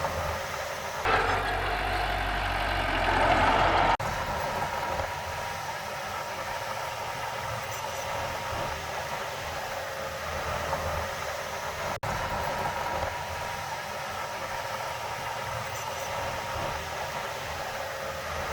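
Heavy earthmoving machinery's diesel engine running steadily. It gets louder about a second in and cuts back abruptly about four seconds in, with another sudden break about twelve seconds in.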